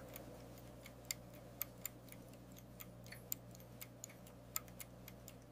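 Faint, quick, even ticking of a freshly wound mechanical tourbillon watch movement, its escapement beating at 28,800 vibrations per hour, over a low steady hum.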